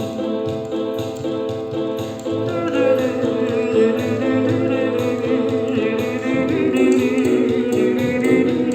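A self-arranged song on a multi-instrument keyboard: sustained chords with a guitar-like plucked part over a steady beat. A woman's singing voice comes in about two and a half seconds in.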